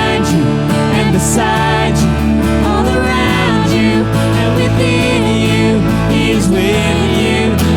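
Church worship band music: full-band sustained chords with melody lines over them.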